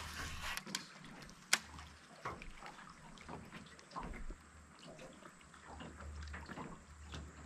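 Faint water trickling and lapping, with scattered small clicks and one sharp click about a second and a half in, over a low hum that comes and goes.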